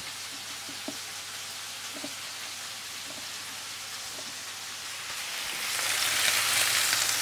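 Veal pieces frying in butter, with a steady sizzle, and a few light knife cuts through bacon on a wooden board in the first seconds. The sizzle grows louder about five and a half seconds in.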